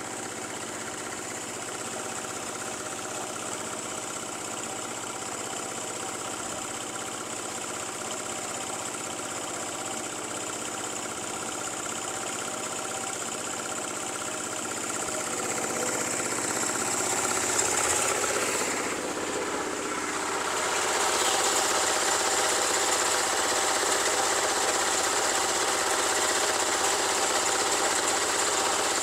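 A motor engine running steadily, growing louder about two-thirds of the way through.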